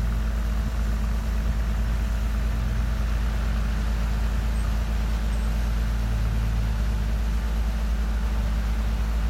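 Dump truck's diesel engine running steadily, a constant low drone.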